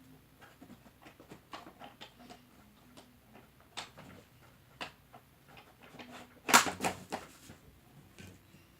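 Objects being handled and set down during a clean-up: scattered light clicks and knocks, with a louder clatter of several sharp knocks about six and a half seconds in.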